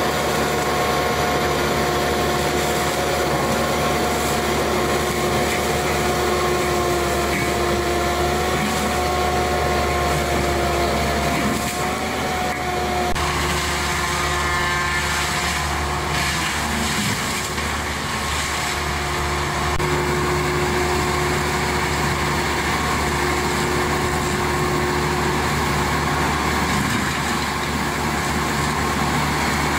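Wheeled forestry mulcher's diesel engine running steadily under load, with a steady high whine over the drone as the front mulching head works through brush. The whine changes about halfway through.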